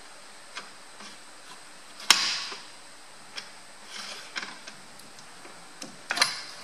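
Scattered metallic clicks and clunks of steel parts as a John Deere power steering valve assembly is unscrewed by hand from its shaft, which is held in a bench vise. There is one loud clack about two seconds in and a quick cluster of knocks near the end.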